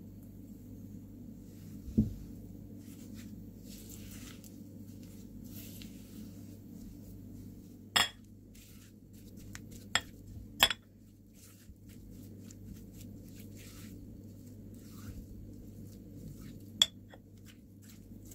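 A kitchen utensil scraping and clinking against a mixing bowl as sugar is stirred into cream cheese. There are about five sharp clinks spread through it, over a steady low hum.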